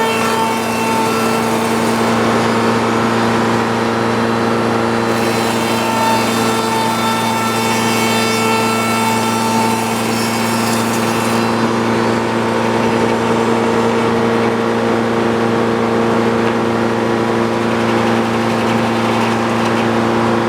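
Sawmill engine running steadily at speed while the saw cuts along a board to edge it; a harsher hiss of the blade in the wood joins the engine sound from about five seconds in until about eleven seconds in.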